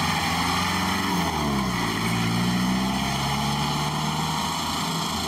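Pickup truck engine running as the truck drives off along a dirt track. Its note drops and then climbs again about a second and a half in.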